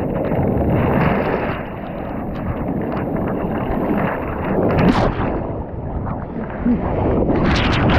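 Surf breaking and washing over a pebble beach, with the water sloshing right against the microphone. The wash swells and falls, with a hissing surge about five seconds in and a louder one near the end.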